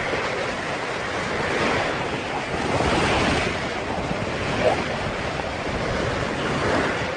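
Water rushing and surging over rocks down a stream bed, a steady rush that swells a little about three seconds in.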